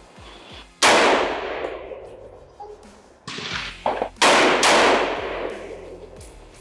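Rifle shots from AR-15-style semi-automatic rifles, each a sharp crack followed by a long echoing tail. One shot comes about a second in, then a quicker run of four shots about three to five seconds in.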